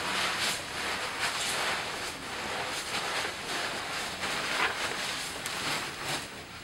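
Disposable isolation gown rustling and crinkling as it is rolled up and stuffed into a biohazard waste bin, a run of soft, irregular rustles.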